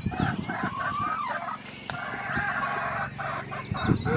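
Domestic chickens clucking and a rooster crowing, with small birds chirping faintly higher up. Low thumps near the start and again near the end are the loudest moments.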